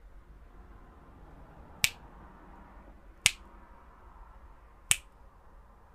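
Three sharp finger snaps, about a second and a half apart, over a faint steady hiss.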